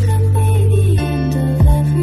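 Slow, gentle instrumental music: a held bass note that shifts to another about a second in, a soft wavering melody above it, and one kick-drum beat near the end.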